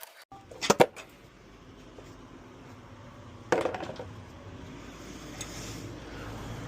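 Metal clanking from engine-teardown work: a sharp double clank about a second in, the loudest sound, and another clattering clank midway. A low steady rumble builds toward the end.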